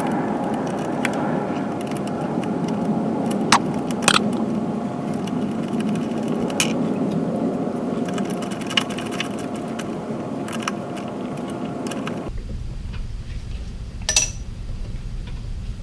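Scattered light metal clicks and clinks of hand tools and small carburetor parts being handled during reassembly, over a steady background hum. The background changes abruptly about 12 s in, and a single ringing metallic clink follows about two seconds later.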